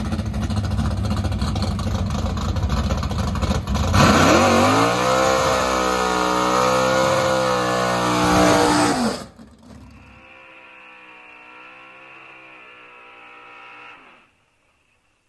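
1976 Chevy Vega drag car's engine doing a burnout. About four seconds in, the engine revs up hard and holds high revs while the rear tyres spin and smoke. It cuts off suddenly about nine seconds in, and a fainter, muffled engine sound follows until silence near the end.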